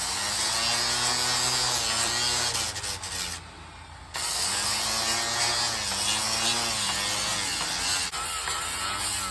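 Electric power sander running against a 3D-printed plastic helmet part, its motor hum dipping and rising in pitch as it is pressed and eased off. It cuts out briefly about three and a half seconds in, then runs again.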